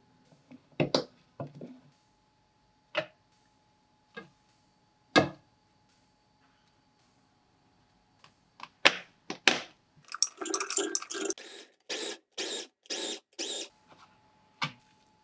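A plastic spoon scraping and knocking against glass chopper bowls and plastic containers while scooping out minced garlic. A few separate knocks of the glass bowl being handled come first, then a run of scrapes that settles into about two strokes a second near the end.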